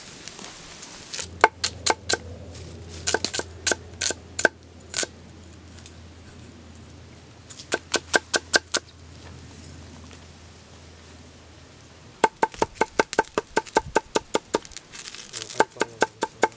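A steel cleaver chopping shallots and ginger on a wooden log: rapid runs of sharp knocks, about five a second, in three bursts, each stroke with a slight metallic ring from the blade.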